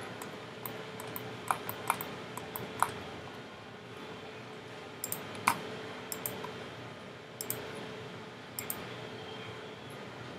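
Scattered, irregular clicks of a computer mouse and keyboard, over a faint steady hum.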